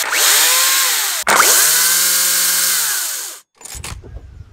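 Makita DUC353 battery chainsaw's electric motor revving in two runs, its whine sweeping up as it spins up and down as it winds down, with a short break between them; the second run dies away about three and a half seconds in. Quieter footsteps on a dirt path follow near the end.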